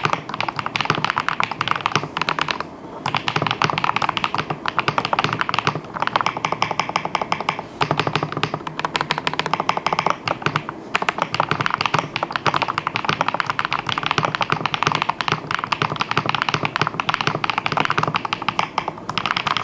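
Typing on a Fantech MaxFit QMK mechanical keyboard with white switches: a fast, continuous run of key clacks with a few short pauses.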